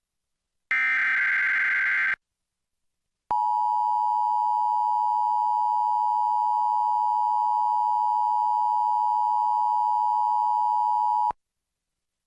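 Emergency Alert System transmission: a raspy digital SAME data burst of about a second and a half, then after a short gap the EAS two-tone attention signal (853 and 960 Hz together) holding steady for about eight seconds before cutting off sharply.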